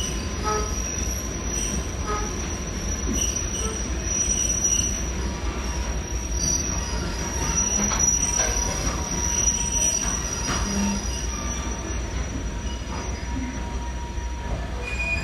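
Train running slowly through a tunnel, heard from on board: a steady low rumble with a thin, steady high-pitched squeal of the wheels on the rails and scattered faint clicks.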